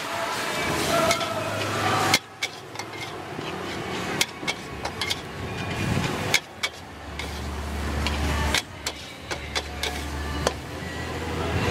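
Metal wok spatula scraping and knocking against a wok as pork, red curry paste and long beans are stir-fried, with sizzling in the first couple of seconds. A low steady hum sits underneath through the middle and later part.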